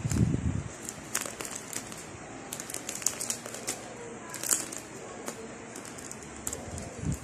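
Thin clear plastic wrapping crinkling and crackling as hands peel it from a plastic clear file folder, in scattered short crackles. Low handling thumps at the start and again near the end.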